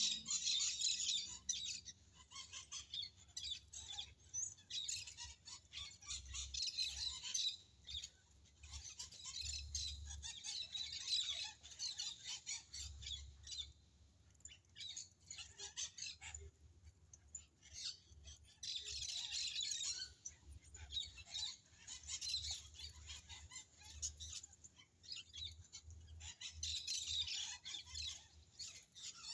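Birds chirping in dense, overlapping spells of rapid high calls, with short lulls between the spells.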